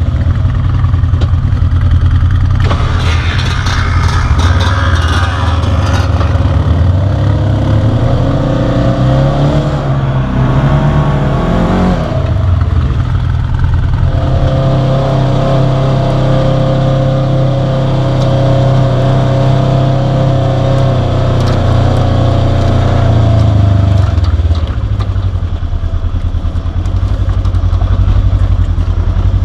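Polaris RZR side-by-side engine running, with a rattling, scraping noise a few seconds in. The engine revs up around 12 s, holds at higher revs for about twelve seconds, then drops back.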